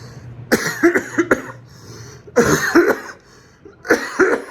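A man coughing in three fits of a few sharp coughs each. It is the cough he woke up with alongside a fever, which he suspects is Covid-19.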